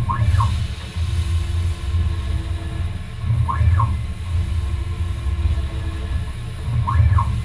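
Optimum CNC lathe threading an M25x1 thread in brass: a steady low machine drone, with a short whine that rises and falls three times, about every three and a half seconds, in step with the repeated threading passes.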